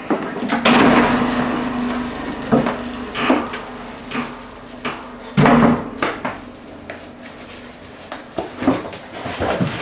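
Wooden folding loft ladder being pulled down from a ceiling hatch: a long sliding scrape with a steady tone in it, then a series of wooden knocks and clatters as its sections unfold and are set on the floor, the heaviest knock about halfway through.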